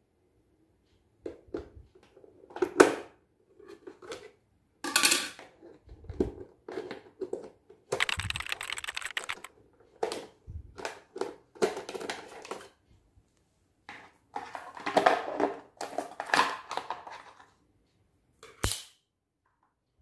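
Hard plastic clicks, knocks and rattles as a Multilaser HO041 robot vacuum is opened by hand to get at its dust bin. A rapid rattling scrape lasts over a second about eight seconds in, and a single sharp snap comes near the end.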